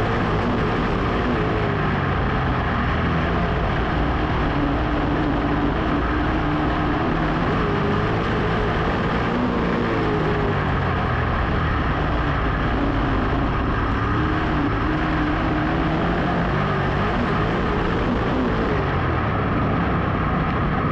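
Dirt modified race car's V8 engine at racing speed, heard onboard, its pitch rising and falling every few seconds as the driver lifts and gets back on the throttle through the turns.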